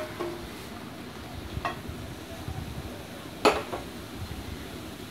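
Ladle stirring thick coconut paste in a kadai over a low sizzle, knocking against the pan three times with a short metallic ring, the loudest knock about halfway through.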